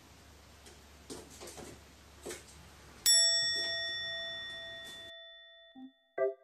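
A single bright bell-like chime sound effect, struck once about three seconds in, ringing with several pitches and fading over about two seconds. Before it there is only faint room tone with a few light clicks. Near the end, short mallet-like notes of background music begin.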